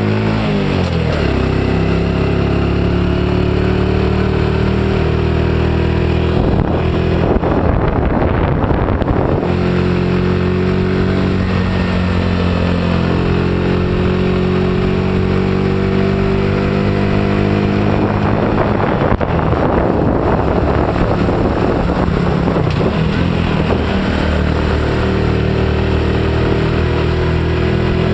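Honda Innova 125 cc single-cylinder four-stroke engine running under way on a heavily laden step-through motorcycle, its note holding steady for stretches and shifting in pitch as the speed changes. Twice a rushing noise rises over the engine, about seven seconds in and again around nineteen seconds.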